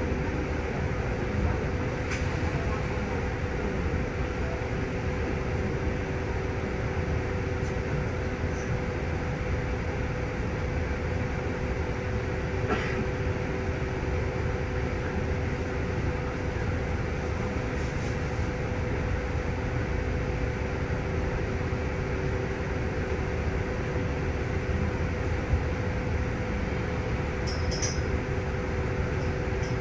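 Cabin of a stationary city bus: steady low rumble and hum with two constant tones, from the idling bus and its air-conditioning, with a few faint clicks.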